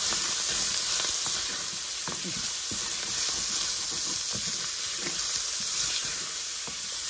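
Diced meat sizzling as it browns in hot rendered fat in a stainless steel pan, stirred with a wooden spoon that scrapes and knocks against the pan now and then.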